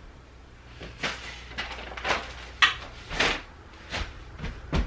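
A plastic-wrapped crib mattress being lowered and shifted into a wooden crib: a string of short rustles and scuffs, with a sharper knock against the frame about two and a half seconds in.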